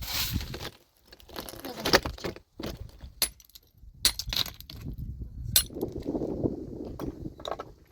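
Hard objects clinking and knocking together as they are handled, in a string of irregular sharp clinks. A few clinks, about three seconds in, about four seconds in and near the middle, ring briefly with a high glassy or metallic tone.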